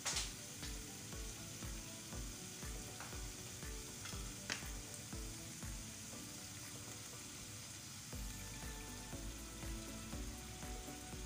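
Chicken curry frying and sizzling steadily in a non-stick pan, stirred with a wooden spoon, with two sharp knocks, one at the start and one about four and a half seconds in. In the second half water is poured in from a plastic bottle.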